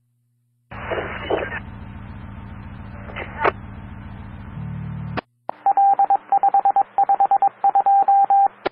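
Fire dispatch radio heard through a scanner. A short keyed-up transmission carries a moment of garbled speech over a steady hum and ends in a squelch click. Then comes about three seconds of a rapid string of loud, evenly pitched beeps, a touch-tone signal sent over the channel, cut off by another squelch click.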